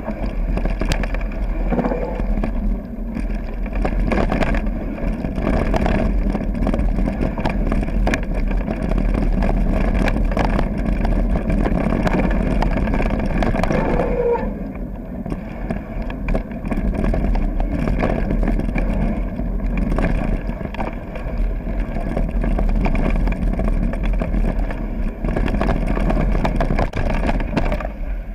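Mountain bike rolling fast down a gravel trail: tyres crunching over loose stones, with frequent knocks and rattles as the bike hits rough ground, under a steady low wind rumble on the microphone.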